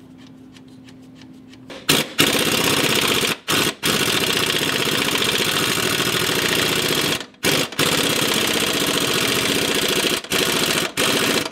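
Impact wrench hammering a control-arm bolt tight, in several long bursts broken by short pauses, starting about two seconds in.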